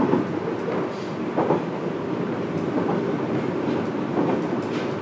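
Running noise inside a Fukuoka City Subway 1000N-series passenger car under way: a steady wheel-on-rail rumble with a few sharper clacks over rail joints.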